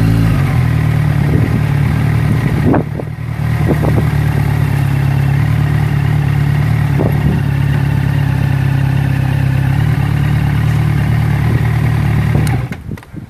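An engine running steadily with a low hum, stopping abruptly near the end.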